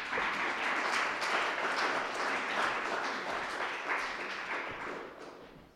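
Small audience applauding, hands clapping together. The applause swells at once and then dies away near the end.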